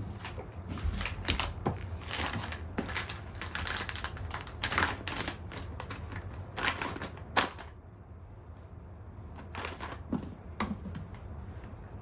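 Paper sheet and plastic packet rustling and crinkling as a disposable wiper sheet is fitted onto a flat floor mop, in quick bursts for the first seven or so seconds, then quieter with a couple of soft clicks a little past ten seconds in.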